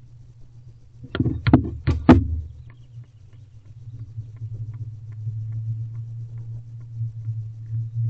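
A quick run of about five sharp knocks and scrapes about a second in, from barn owls moving about in a wooden nest box, over a steady low hum that grows a little louder in the second half.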